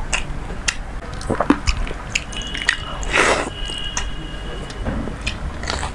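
Close-miked wet squelching and clicking of fingers mixing water-soaked rice (panta bhat), with chewing and lip smacks: a string of short, irregular wet smacks and a longer slurpy smear about three seconds in.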